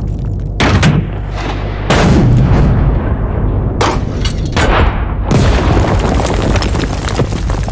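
Tank cannon fire and explosions: about five heavy blasts in a row, each trailing off in a long rolling echo, over a steady low rumble.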